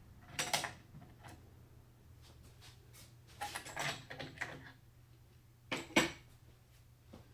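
Computer parts being handled on a workbench: a clatter about half a second in, a run of knocks and scrapes around three to four and a half seconds, and a sharp knock about six seconds in, the loudest. A steady low hum runs underneath.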